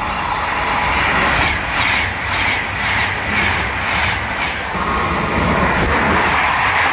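CP Alfa Pendular tilting electric train passing at speed: a loud rush of wind and wheel noise with a rhythmic clatter of about three strokes a second as its bogies go by. After about five seconds the clatter gives way to a steadier rush as an electric locomotive hauling Intercidades coaches passes.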